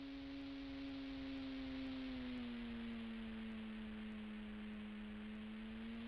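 RC model plane's motor and propeller whining steadily in flight, dropping slightly in pitch a little over two seconds in.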